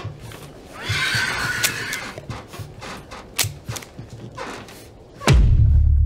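Repeated banging and pounding on a broken wooden door, with a harsh creature screech about a second in. Near the end a single loud pistol shot with a long deep boom dying away.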